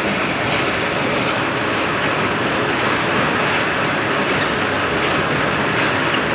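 PARAS radial drilling machine running: a steady mechanical noise of motor and gearing with a light, regular tick about every three-quarters of a second.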